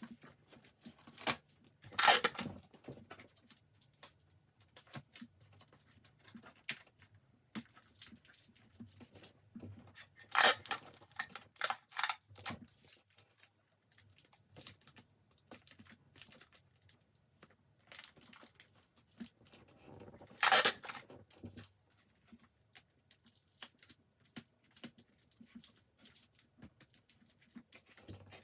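Hands handling plastic-wrapped snacks and packaging: scattered light crinkling, rustling and small clicks, with four short, louder crinkling or tearing bursts spread through.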